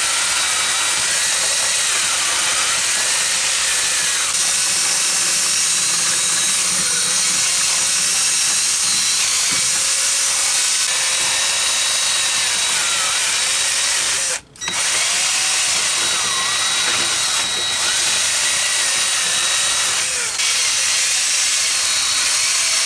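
Power drill spinning a brush to scour rust and debris out of a steering knuckle's hub bore. It runs continuously with a wavering pitch, stops briefly a little past halfway, then starts again.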